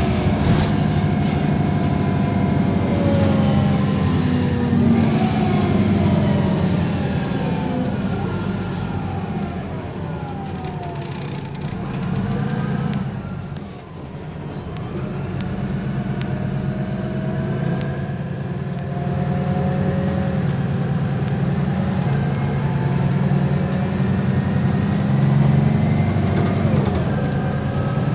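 MAN Lion's City city bus heard from inside the passenger cabin while driving: steady engine running with a whine that rises and falls in pitch as the bus gathers and loses speed. It eases off briefly about halfway through, then pulls away again.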